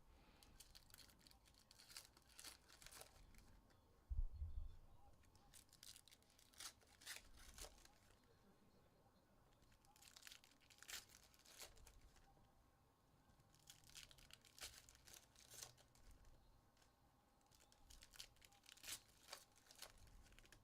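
Faint tearing and crinkling of trading-card pack wrappers being opened, in bursts every few seconds, with a dull thump about four seconds in.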